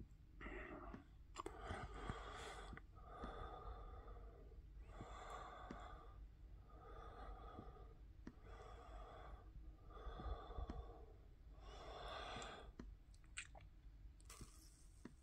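Faint breathing close to the microphone, steady and even, a breath every second or so, with a few soft clicks.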